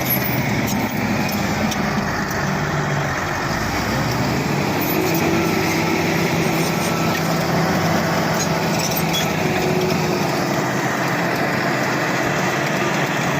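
Bulldozer's diesel engine running steadily.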